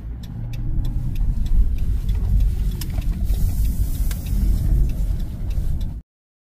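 A van's engine and road noise from inside the cabin as it slows and pulls over to the curb, with the turn signal clicking about three times a second. The sound cuts off suddenly near the end.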